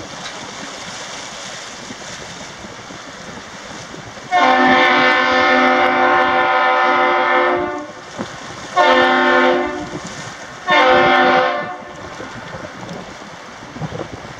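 A horn sounds the long-short-short master salute for a departing Great Lakes freighter: one long blast of about three and a half seconds, then two short blasts about two seconds apart, over steady wind noise on the microphone.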